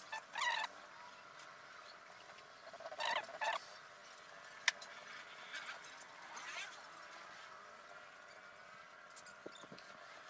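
Several short animal calls in the background, a few seconds apart, with one sharp click about halfway through.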